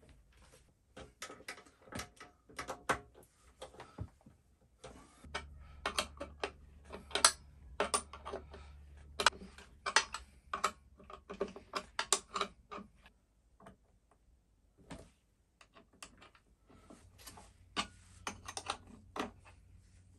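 Irregular clicks, knocks and light clatter from hands fitting battery cables and terminal lugs onto the batteries of a hand-truck power station. A steady low hum comes in for a few seconds about five seconds in and again near the end.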